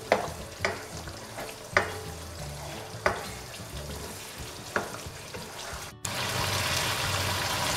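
A spatula scraping and knocking against a non-stick wok as chicken liver in tomato masala is stirred and fried down, a stroke every second or so over a faint sizzle. About six seconds in the sizzling turns louder and steady.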